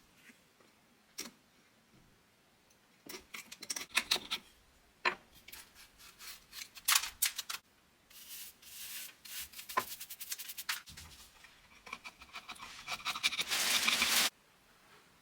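Irregular scraping and rubbing strokes by hand, short and scratchy at first, then longer hissing strokes that stop abruptly near the end.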